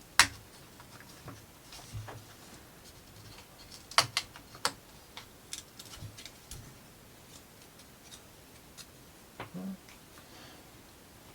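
Thin plywood model-kit pieces clicking and tapping as they are handled and set down on a table: a few sharp clicks, the loudest about a fifth of a second in and around four seconds in, with lighter ticks between.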